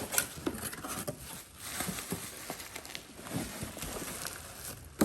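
Cardboard box and packing being handled and opened: uneven rustling broken by scattered clicks and knocks, with a sharp knock near the start and another at the end.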